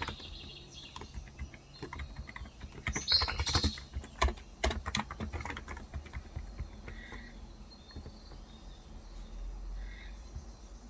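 Typing on a Cox Endeavour electrostatic capacitive tenkeyless keyboard with 35 g switches. A quick run of keystrokes comes about three to four seconds in, then only scattered single keys.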